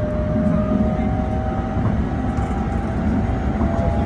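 Keikyu 600 series electric train accelerating under full power: its traction motors and inverter whine in thin steady tones that step up in pitch a couple of times, over a low steady running rumble.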